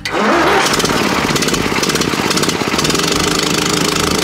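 International B-414 tractor's gasoline engine starting on a jump-starter boost after a dead battery: it catches at once, climbs in speed for about half a second, then runs steadily.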